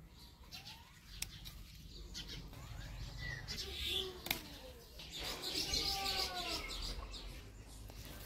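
Leaves of a hibiscus shrub rustling as flowers are picked by hand, with a couple of sharp snaps of flower stems breaking off.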